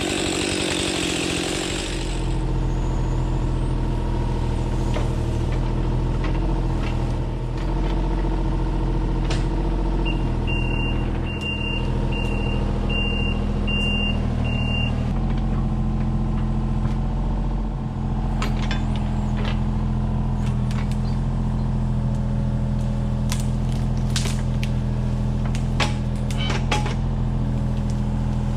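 Kubota U35-4 mini excavator's diesel engine running steadily, after a louder rasping noise cuts off about two seconds in. About ten seconds in, a run of six short high beeps, and scattered knocks and cracks in the second half.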